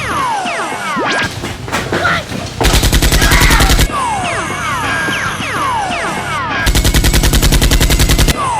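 Two bursts of rapid automatic gunfire, each lasting a second or more, dubbed-in sound effects over a background of repeating falling whistling tones.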